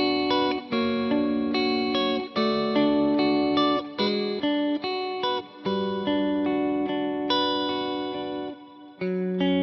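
Covenant Tradition T-SP electric guitar with twin humbucking pickups playing a sequence of chords. Each chord is struck sharply and left to ring until the next, with a short break about a second before the end.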